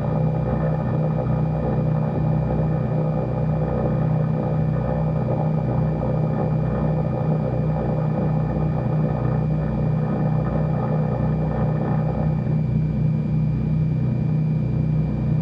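Cessna 310's twin piston engines idling while the aircraft taxis, a steady low drone with a faint high whine over it. The sound grows a little duller about twelve seconds in.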